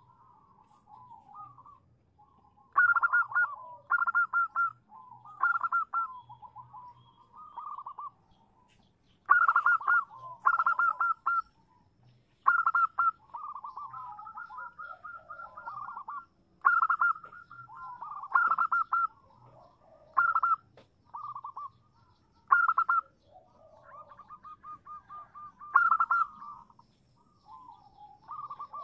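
Zebra dove cooing: loud clusters of rapid staccato coos repeated every second or two, with softer rolling trills between them. This is a female's call, used to lure males into answering.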